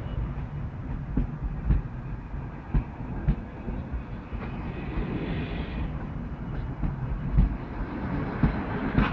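PKP Intercity passenger coaches rolling slowly past at close range: a steady low rumble of wheels on the track, broken by irregular knocks and clicks as the wheels cross the rail joints. About five seconds in comes a brief higher-pitched noise.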